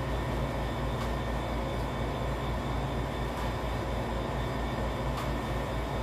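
Steady low mechanical rumble with an even pulsing at the bottom, over a constant noisy hiss, with two faint clicks about a second in and near the end.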